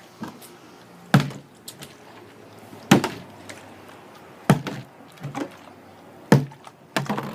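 Plastic water bottle being flipped and landing on a hard surface, about six sharp thuds spread over several seconds, the last a quick double bounce.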